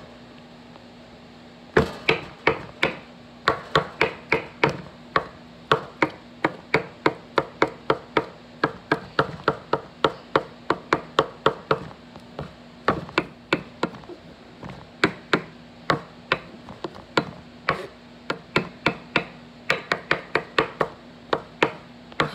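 Kitchen knife chopping hard-boiled eggs on a wooden cutting board, the blade knocking the board in a quick, even rhythm of about three chops a second. The chopping starts about two seconds in and pauses briefly about halfway through.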